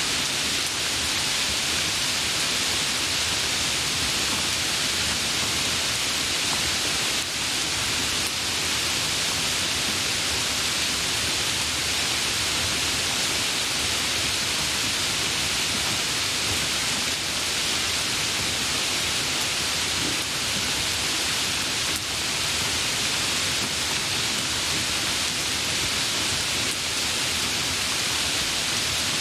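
Steady, heavy rain, an even hiss without single drops or thunder standing out.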